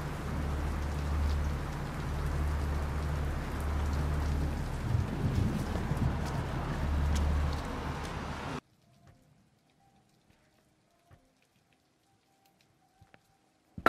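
Steady rain falling on wet paving, with a low rumble underneath. It cuts off abruptly a little over halfway through, leaving near silence with a faint steady hum and a few light ticks.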